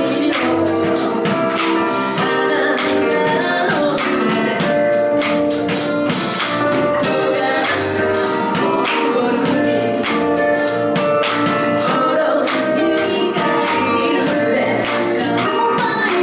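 A woman singing into a microphone over a live acoustic band: acoustic guitar and percussion, with steady stick strokes and cymbal hits keeping the beat.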